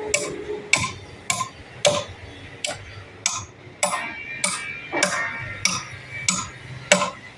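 Steady hammering: about a dozen sharp, ringing strikes, roughly one every half second or a little more.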